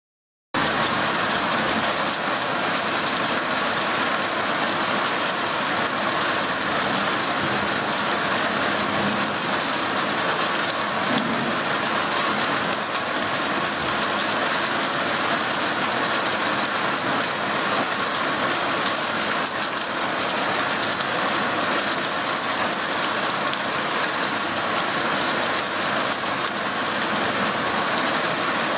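Hailstorm: hail and heavy rain falling hard and steadily, a dense hiss thick with fine ticks of stones striking.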